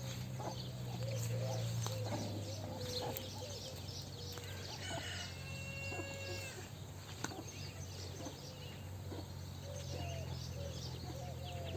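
Chickens clucking in short repeated calls over a steady low hum, with one longer, higher call about halfway through.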